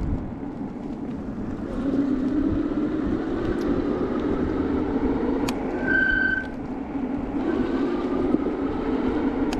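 E-bike riding along, its Bafang hub motor humming with a pitch that rises and falls with speed over wind and tyre noise. About six seconds in, a brief high-pitched squeal from the disc brakes, with a fainter squeal a moment later: the brakes still squeal, only less loudly, after anti-squeal paste was applied.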